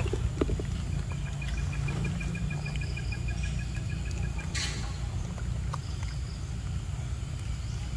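Outdoor ambience: a steady low rumble under a rapid, even, high chirping trill that runs from about one second in to about four seconds and comes back near the end. There is a short rustle a little past halfway.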